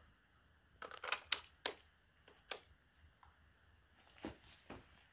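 A few light clicks and knocks, scattered irregularly, from handling a shotgun and its shells.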